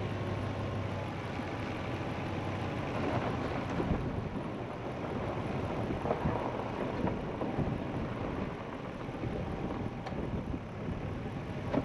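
Vehicle driving off-road over rough dirt and gravel: tyres crunching, with a steady rumble and scattered irregular knocks and jolts.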